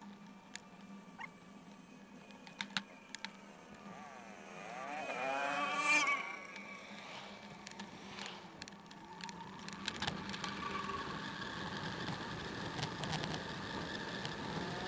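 A motor vehicle passes close by. Its engine rises in pitch and grows louder over about two seconds to a peak about six seconds in, then drops away. Around it are faint road noise and scattered light clicks and rattles, with a steadier rushing noise from about ten seconds on.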